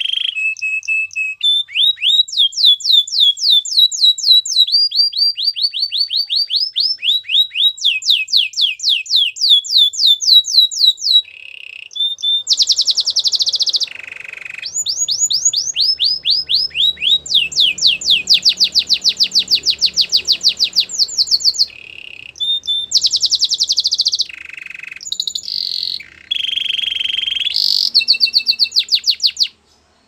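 Canary singing a long, loud song: phrase after phrase of rapid repeated down-slurred notes and rolling trills, with brief breaks between phrases, stopping abruptly near the end.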